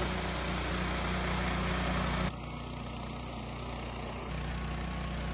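Woodmizer LT15 Start sawmill running steadily with an even mechanical hum, dropping a little in level a couple of seconds in.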